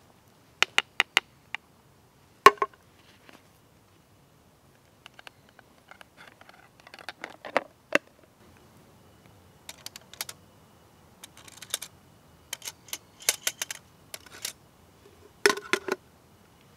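Aluminium parts of a Trangia spirit stove cook set clinking and knocking as it is put together and a pan set on it: scattered sharp metallic clicks, some in quick clusters, the loudest a single knock about two and a half seconds in.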